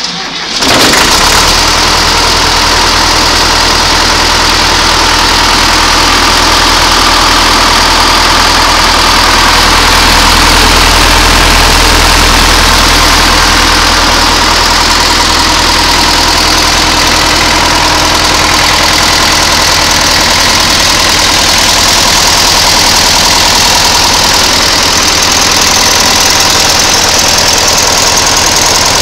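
Air-cooled Deutz diesel engine cranked on its starter and catching within about a second, then running steadily.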